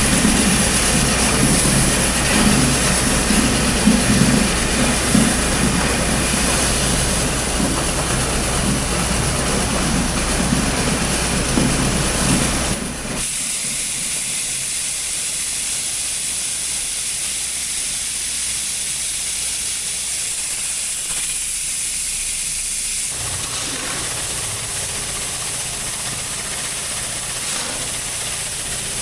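A vehicle's engine rumble and steady hiss, much like a farm truck driving, that cuts off abruptly about thirteen seconds in. After it a thinner steady hiss carries on.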